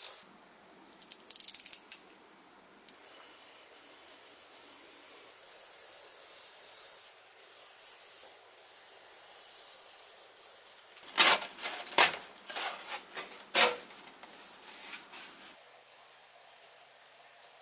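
Paper rustling and a snap-off utility knife scraping as it cuts along a paper template laid on a depron foam sheet, with a cluster of sharp clicks and crackles about eleven to fourteen seconds in.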